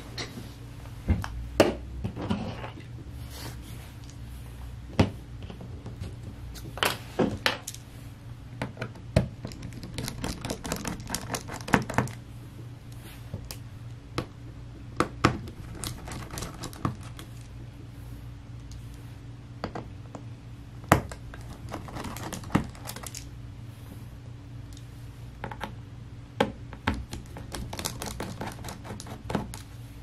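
Precision screwdriver working the pentalobe bottom-case screws out of a MacBook Air, with scattered sharp clicks and taps as the bit meets the screws and the small screws and tool are set down. A steady low hum runs underneath.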